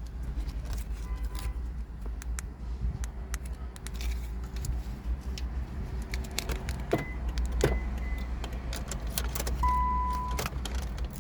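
Car keys and remote fobs jangling and clicking as they are handled, with a few short electronic beeps, the longest near the end, over a steady low hum.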